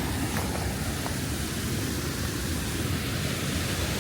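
A waterfall's falling water rushing as a steady, even noise.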